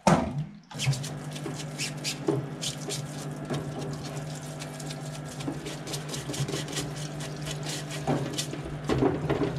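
Benchtop parts washer's electric pump running with a steady hum, solvent streaming from its flexible nozzle while a greasy part is turned and rubbed under it, with irregular splashing and clicking. A sharp knock right at the start.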